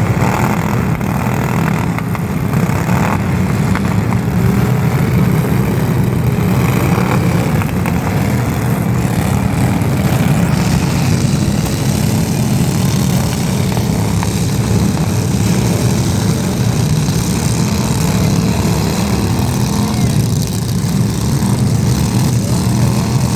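A motor running steadily and loudly, an unbroken low drone at an even level.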